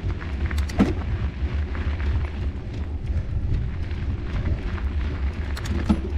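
Wind buffeting the microphone of a mountain biker's action camera as the bike rolls along a dirt trail, with tyre noise and bike rattles over the ground. Two sharper knocks stand out, about a second in and near the end.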